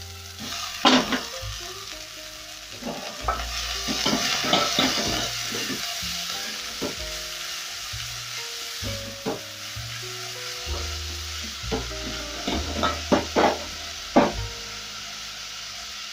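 Chopped leafy greens and onions sizzling in hot oil in a metal pot (sufuria), stirred with a wooden spoon that knocks against the pot now and then, loudest about a second in and in a cluster near the end.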